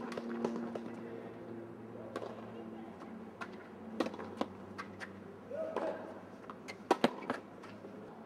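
Tennis rally on a hard court: sharp pops of the ball off rackets and court every second or two, the loudest a quick pair about seven seconds in. Brief voices come in between.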